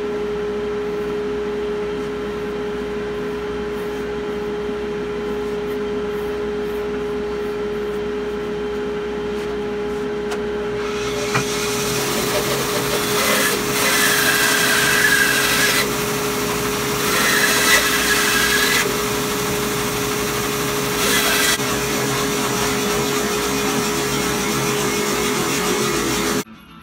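Bandsaw running with a steady hum; about halfway through, the blade starts cutting a thick block of old oak, with a loud rasping hiss that swells in several louder spells as the cut goes around the curve of a round bowl blank. The sound cuts off suddenly near the end.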